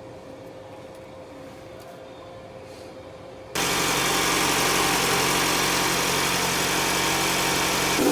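Quiet for about three and a half seconds, with a faint steady hum. Then a Toyota Estima's engine is suddenly heard running steadily at idle.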